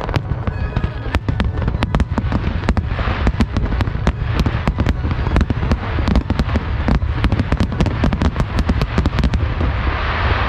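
Fireworks going off in quick succession: a dense run of sharp cracks and pops, several a second, over a steady low rumble.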